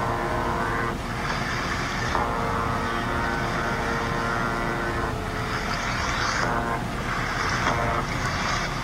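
Steady engine drone, a stack of even tones, broken three times by a rushing hiss lasting one to two seconds.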